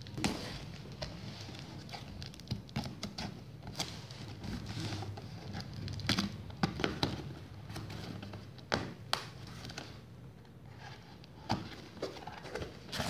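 Scissors cutting packing tape on a cardboard box, with irregular taps, clicks and rustling as the box is handled and turned. A few sharper ticks stand out in the second half.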